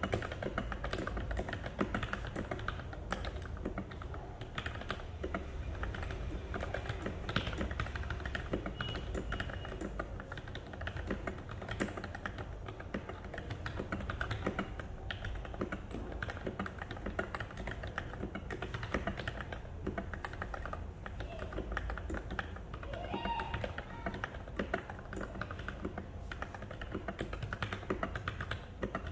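Fast, continuous typing on an NJ68 mechanical keyboard with lubed Gateron Milky Yellow linear switches: a dense run of keystroke clacks with no pauses.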